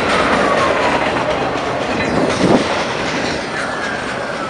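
CSX freight train's boxcars rolling past, a steady rumble with wheels clattering over the rail joints. A thin wheel squeal slides down in pitch twice, early and again near the end, and there is one clunk about halfway through.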